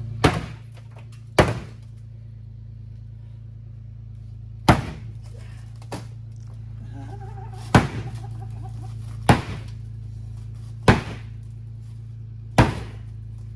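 Sledgehammer blows on the sheet-metal roof of a stripped BMW E36 shell, seven heavy strikes spaced a second to three seconds apart, over a steady low hum.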